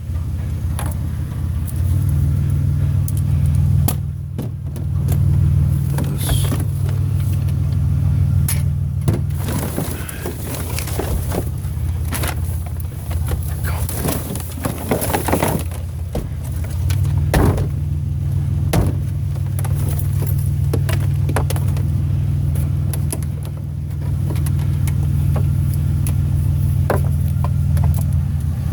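A vehicle running or driving with a steady low rumble, with scattered knocks and rattles on top.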